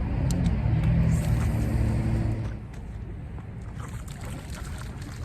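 A motor engine running with a low hum over steady rumble, dropping away about two and a half seconds in, with a few faint clicks.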